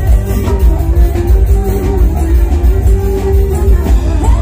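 Loud music with a heavy bass and a sustained melody line, played through a large carnival sound system.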